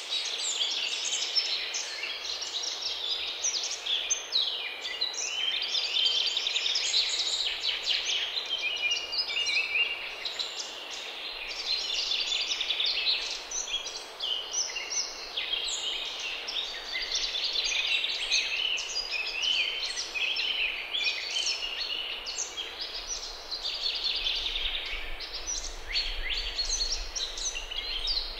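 Small birds chirping and singing without a break, many short, quick calls overlapping from several birds at once.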